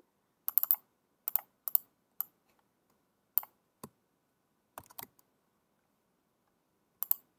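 Computer keyboard keys and clicks tapped in short, scattered groups, with a pause of about a second and a half before a last click near the end.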